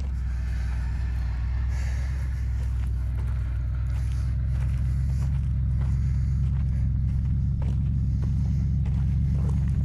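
Wrecker's engine idling steadily, a continuous low rumble, with faint footsteps on dirt.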